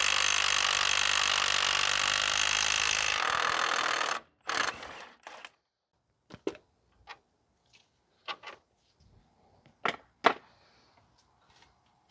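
A power tool fitted with a 21 mm socket runs steadily for about four seconds, spinning out a brake caliper bolt, then stops. A scatter of short, light metallic clinks follows, the sharpest two about ten seconds in.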